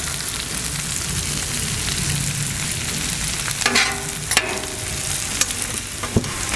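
Sliced beef kielbasa, bell peppers and onions sizzling on a hot Blackstone steel flat-top griddle while a metal spatula tosses them and scrapes across the griddle surface. The sizzle hisses steadily, with a few louder spatula scrapes in the second half.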